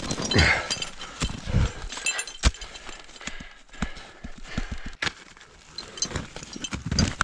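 Ice axes and crampons striking into snow while climbing a winter route: an irregular run of thuds and knocks, the sharpest about two and a half and five seconds in.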